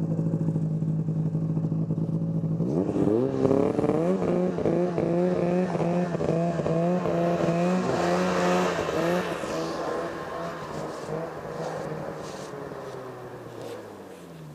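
Snowmobile engine idling, then revving up sharply about three seconds in as the sled pulls away through deep snow. The engine pitch rises and dips with the throttle while riding, then falls and fades near the end as it slows.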